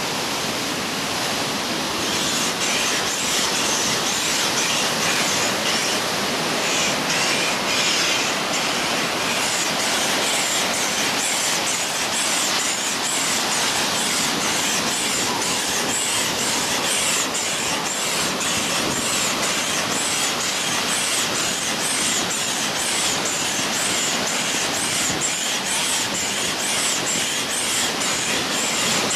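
Air pump blowing air through a hose into the leg chambers of a vinyl inflatable wolf ride-on, a steady rushing hiss as the legs fill.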